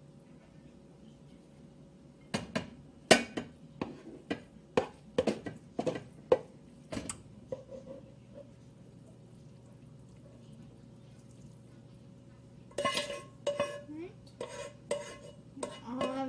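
A skillet being emptied into a baking dish, with a run of sharp knocks and scrapes as the mixture is worked out of the pan, a pause, then more clattering of pan and utensil near the end.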